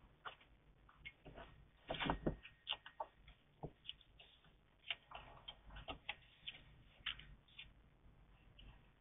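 Irregular clicks, taps and scrapes as a hedgehog moves about inside a plastic feeding box and climbs out through its plastic pipe entrance, busiest about two seconds in.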